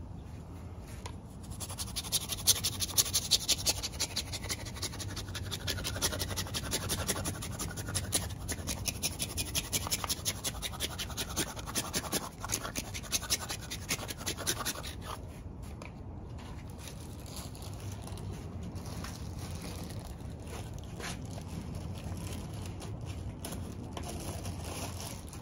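A block of hard cheese being grated by hand over a pizza: a fast run of rasping scrapes that begins about a second and a half in and stops about fifteen seconds in. A quieter steady background follows.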